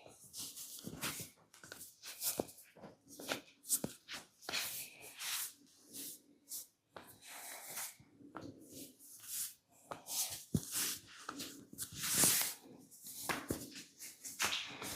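Massage sounds: hands rubbing and patting on skin, a run of irregular short swishes and taps with a few sharp clicks among them.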